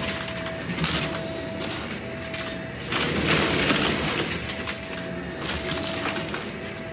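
Shark cordless stick vacuum running through a heap of small shells and coins on a shag rug, the shells crunching and rattling into the head in surges. Its motor whine holds one pitch and drops in and out.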